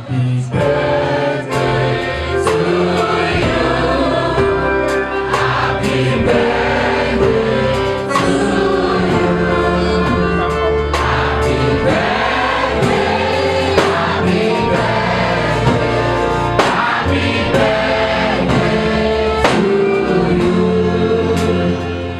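Gospel choir singing over a band with a steady beat.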